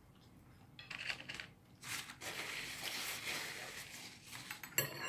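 Dinner-table eating noises: short crackly bursts, then a couple of seconds of steady scraping or rustling noise, and a single sharp click near the end.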